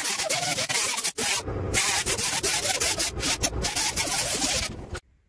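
3-inch grinder with a 36-grit Roloc disc grinding the body filler on a car door's edge down to a tape line to set an eighth-inch panel gap. It runs under load in a steady, loud hiss with a wavering whine, with a brief break about a second in, and stops suddenly about five seconds in.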